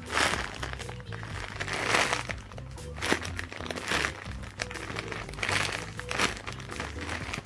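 Packaging crinkling in short bursts every second or two as it is handled, over background music.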